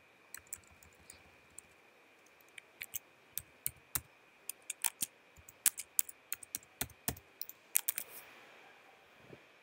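Computer keyboard being typed on: irregular runs of short key clicks, with a brief pause about two seconds in. A faint steady high whine runs underneath.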